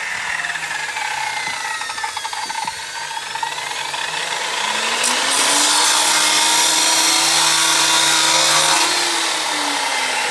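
Power tool cutting through the hard ABS plastic borehole casing. The motor speeds up, a loud cutting noise holds for a few seconds past the middle, and the motor winds down near the end.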